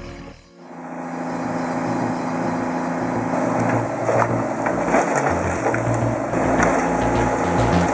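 Heavy machine's engine running steadily, with wood crunching and cracking under it and scattered sharp cracks. The sound drops out briefly about half a second in, then fades back up.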